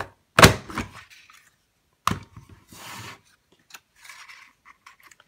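A Creative Memories Floral Circle paper punch pressed down twice, about half a second and two seconds in, each a sharp clunk as it cuts through the paper. Paper sliding and rustling in between as the sheet is repositioned.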